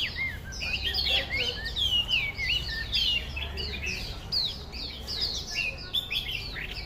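Chinese hwamei (Melodious Laughingthrush) singing loudly: a fast, unbroken run of varied, clear whistled notes, many sliding down or swooping up, several each second.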